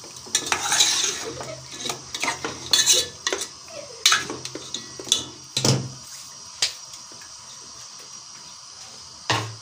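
Steel ladle scraping and clinking against an aluminium pot while stirring chicken pieces being browned in oil. The clatter is irregular for about the first seven seconds, then settles to a soft hiss of frying, with a louder knock of the ladle on the pot near the end.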